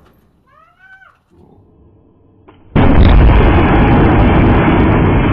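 CRT television picture tube imploding under an air-cannon shot: a sudden loud boom with breaking glass about three seconds in, drawn out and carrying on to the end with little treble.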